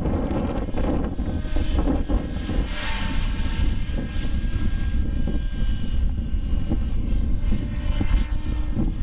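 Align T-Rex 600 radio-controlled helicopter in flight, its motor and rotor whine heard as thin steady tones over heavy wind rumble on the microphone.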